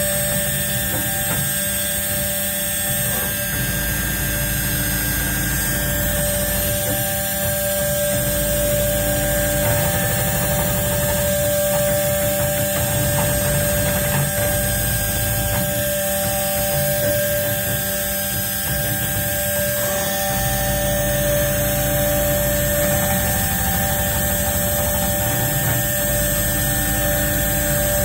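CNC engraving machine running: a steady whine with several tones, some switching on and off or changing every few seconds as the axes move.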